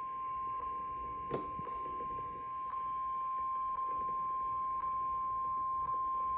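NOAA Weather Radio 1050 Hz warning alarm: a single steady high tone with faint ticks about once a second and a sharper click a little over a second in. The tone announces that a warning, here a tornado warning, is about to be read.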